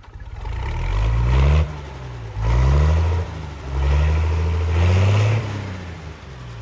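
Diesel engine of a PistenBully snow groomer revving up and dropping back four times in quick succession.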